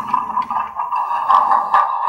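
Soundtraxx WOWSound decoder's simulated Challenger steam locomotive sound, played through the model's small speaker: rhythmic steam exhaust chuffs, with two sharp metallic clicks in the second half.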